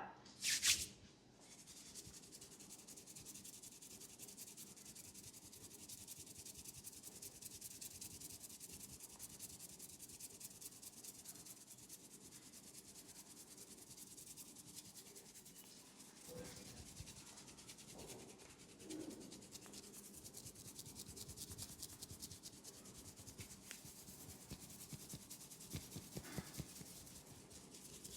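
Hands rubbing fast and steadily over hair and skin in a head and neck massage. A brief loud hit comes about half a second in.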